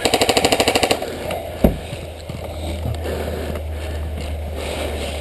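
Airsoft gun firing a full-auto burst, a rapid even string of shots that stops about a second in. A single knock follows, then a low steady hum.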